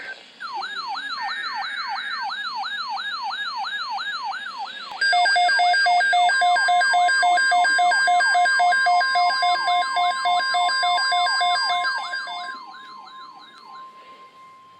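Electronic alert tones of a weather-radio emergency alert: a fast, repeating siren-like wail from about half a second in, switching at about five seconds to a louder two-tone hi-lo alarm, which fades out near the end. Under it, from about six seconds, a single steady tone, the NOAA Weather Radio warning alarm tone, holds on past the siren sounds.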